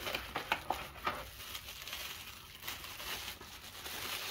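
Clear plastic packaging crinkling and rustling as it is handled, with a few sharp clicks and taps in the first second or so.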